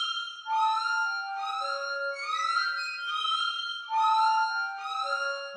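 Contemporary chamber-ensemble music: high, overlapping sustained notes, each bending slightly upward, with new ones entering every half second or so in a repeating figure.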